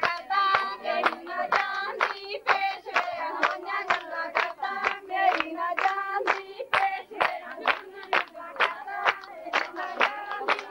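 Women singing Punjabi boliyan together over steady, quick rhythmic hand clapping, the clapping that keeps the beat for a giddha dance.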